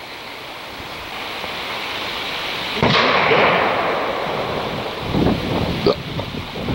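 Wind gusting across the microphone, rumbling and buffeting: it builds gradually, jumps to a strong gust about three seconds in, and keeps gusting with low rumbles.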